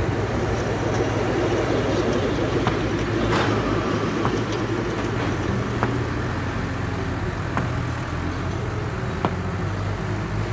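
Radio-controlled construction models running, their electric motors and gearboxes making a steady whirr with a few light clicks.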